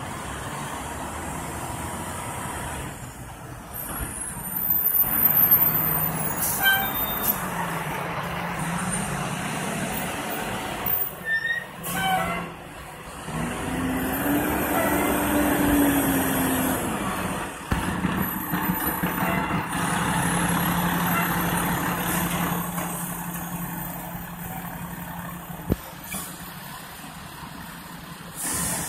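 Diesel engines of a fire engine and a ladder truck running as they pull up and manoeuvre to back into their station, the engine pitch rising and falling about halfway through, with short air brake hisses.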